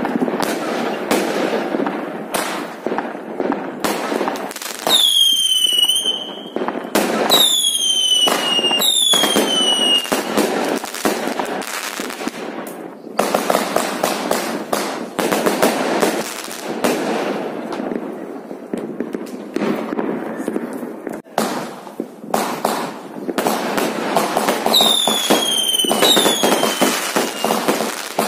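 Fireworks going off in quick succession: a dense run of pops and crackles from launched comets and bursting shells. Falling whistles cut through it, three between about five and ten seconds in and two more near the end.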